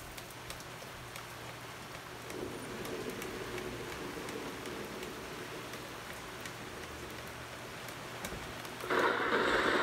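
Steady rain falling, with the patter of individual drops hitting a wet patio and deck. It gets suddenly louder near the end as the rain comes down harder.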